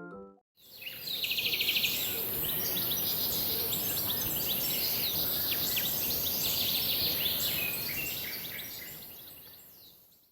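Outdoor nature ambience: several birds chirping and calling, with a fast trill about a second in, over a steady high hiss. It starts about half a second in and fades out over the last two seconds.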